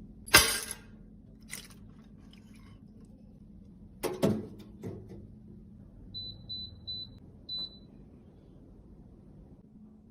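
A loud sharp click, a lighter click, then a quick cluster of taps and clicks, followed by four short high-pitched electronic beeps.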